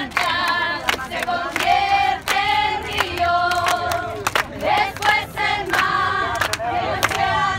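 A crowd of marchers singing together in unison with rhythmic hand clapping.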